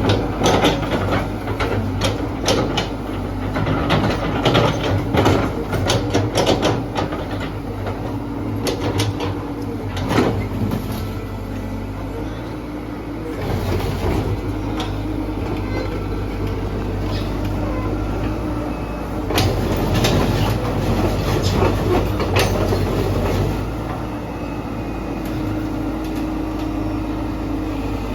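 Caterpillar 312D excavator's diesel engine running steadily, with many sharp clicks and knocks over it, most of them in the first third and again a little past the middle.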